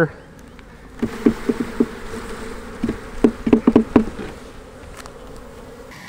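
Honey bees buzzing as a frame of bees is shaken into an open hive box. The wooden frame is jerked down in two quick runs of knocks, about four a little after a second in and about six around three to four seconds in.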